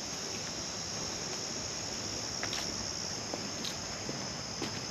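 Steady, high-pitched chorus of insects in summer woodland, one unbroken buzz over a soft, even hiss.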